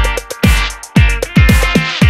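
Electronic background music with a steady beat of deep, pitch-dropping kick drums, about two a second.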